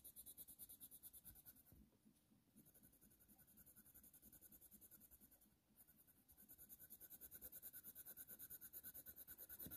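Faint, rapid strokes of a Faber-Castell Polychromos coloured pencil shading on smooth hot-press watercolour paper, several strokes a second, laying down a base layer. It pauses briefly twice.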